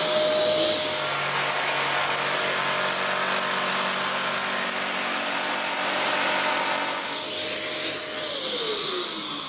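Kärcher multi-purpose wet-and-dry vacuum running together with an electric power tool plugged into its socket, the tool working wood while the vac draws off the dust. Near the end a motor winds down, its pitch falling.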